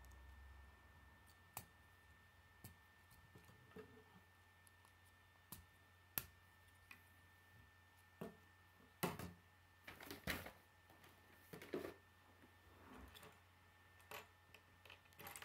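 Scattered quiet clicks and taps of plastic K'nex pieces being snapped together and handled, with a few louder clacks a little past the middle.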